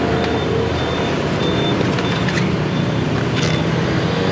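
Steady road traffic noise beside a busy street, with a faint high-pitched beep repeating on and off through it.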